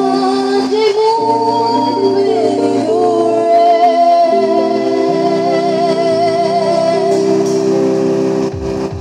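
Music from a live performance: steady held chords with a wavering melody line over them, which may be voices. The sound dips briefly near the end.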